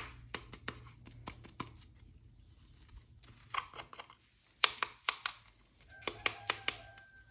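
A plastic action figure and its packaging being handled: scattered sharp clicks, taps and crinkles, busiest in the second half.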